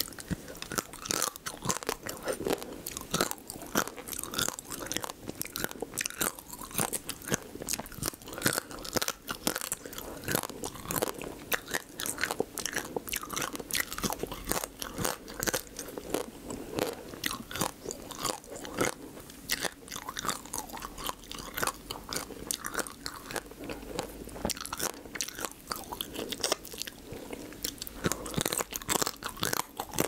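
Close-miked biting, crunching and chewing of spicy marinated raw crab: thin crab shell cracking between the teeth in dense, irregular crackles.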